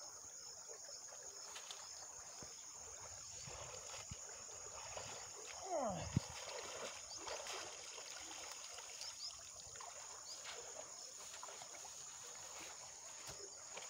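Faint water sloshing and grass rustling as a man wades out of a river and pushes up through tall grass with a weed-clogged fishing net, over a steady high chirr of insects. A short falling sound about six seconds in.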